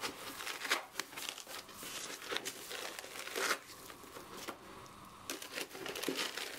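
Irregular rustling, crinkling and scraping of handled packing: polyethylene foam inserts rubbing against the cardboard box as they are lifted out, and a cushioned mailer bag being moved. Quietest a little before the end.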